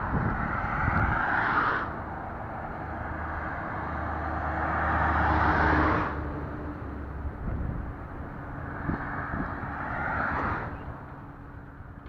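Motorway traffic passing below: three vehicles go by in turn, each a swelling and fading rush of tyre and engine noise. The loudest pass comes about five to six seconds in, with a low engine rumble under it.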